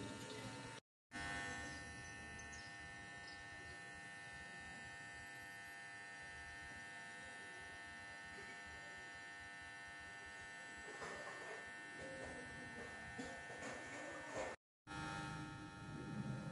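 Faint steady electrical buzz with a high, many-toned whine over hiss, cutting out briefly to silence twice, about a second in and near the end.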